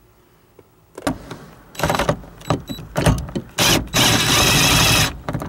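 DeWalt cordless impact driver running a bolt down through a seat track bracket into the truck floor: a couple of short spells of hammering, then one longer run of about a second and a half near the end as the bolt is driven home. A few knocks of the tool and hardware being handled come before it.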